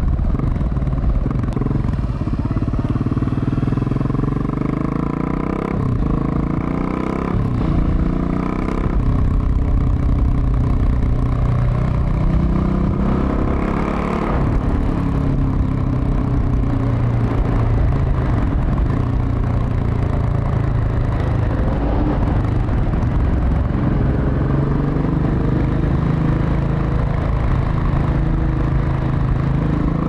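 KTM 690 SMC R's single-cylinder engine running through a Leovince SBK aftermarket exhaust while riding, its revs rising and falling several times, with the second half ridden inside a road tunnel.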